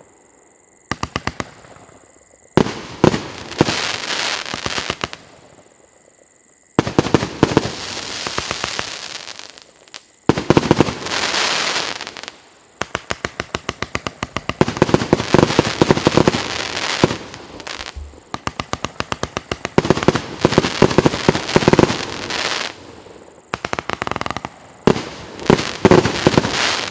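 Pyroff 'Legends of the East' firework battery firing: volleys of rapid, evenly spaced bangs with crackling, in about seven bursts separated by short pauses.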